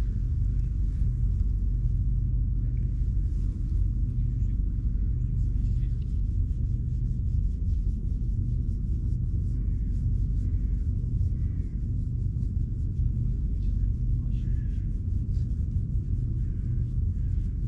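Domestic cat purring steadily and close up while its head and chin are stroked, a sign of a content, relaxed cat. A few faint bird chirps sound now and then.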